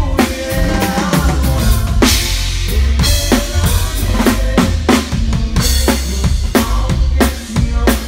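Live drum kit playing a conjunto groove: bass drum and snare hits in a quick steady beat, with a cymbal crash about two seconds in. Pitched band instruments sound along underneath the drums.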